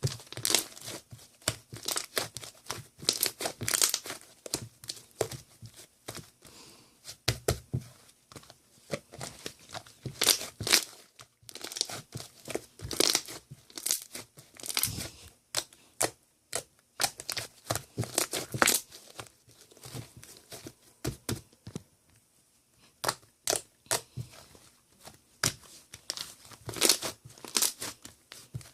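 Irregular crinkling and tearing noises, coming in clusters of rapid crackles with short pauses between them.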